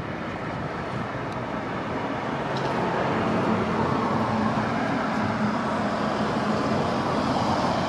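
Road traffic noise with a vehicle's engine hum, growing louder from about three seconds in as the traffic comes closer.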